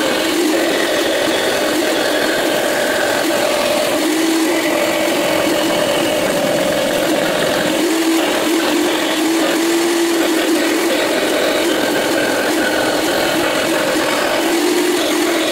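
Bandsaw running steadily while its blade cuts through a thin steel knife blank, a constant machine hum with a dense, hissy cutting noise over it.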